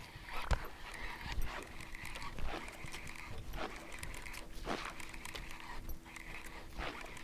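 A loud propeller-style topwater lure being jerked across the water surface, chopping and splashing in short strokes about once a second as it is retrieved.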